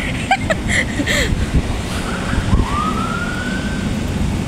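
A single smooth tone rising in pitch and levelling off, lasting about a second and a half, starting about two and a half seconds in, over a steady low rumble, with a few brief voice fragments at the start.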